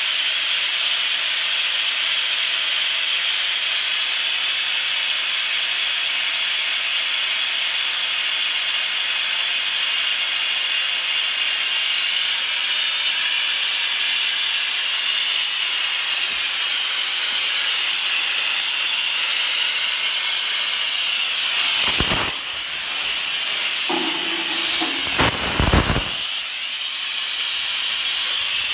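Compressed Tri-Mix welding gas rushing out of an opened gas cylinder in a steady, loud hiss: the bottle is being vented empty. Near the end the hiss briefly dips and a few bumps break in.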